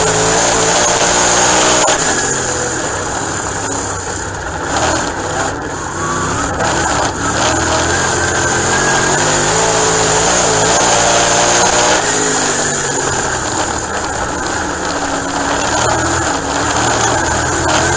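Dirt late model race car's V8 engine at racing speed, heard from inside the cockpit. The engine note climbs and drops again and again as the driver accelerates and lifts around the dirt oval, over a steady hiss.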